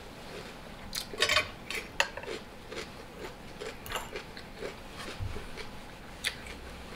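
Fork clinking and scraping against a dish of food while eating: a few sharp clinks about a second in, another at two seconds, and one more near the end.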